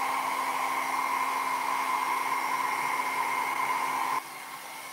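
Small travel hair dryer blowing steadily, a rush of air with a steady hum and whine. It gets noticeably quieter about four seconds in.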